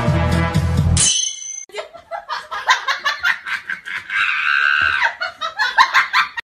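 Music that cuts off about a second in, followed by rapid, high-pitched giggling laughter with a longer high note in the middle.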